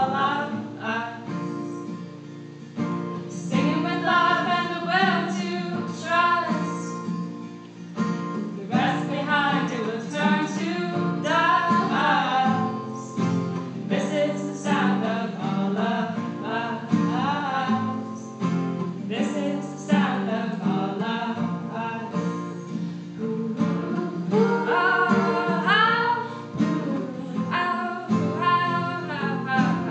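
Women singing a song live, with two acoustic guitars played as accompaniment.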